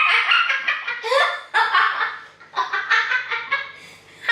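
People laughing in several separate bursts, high-pitched and choppy.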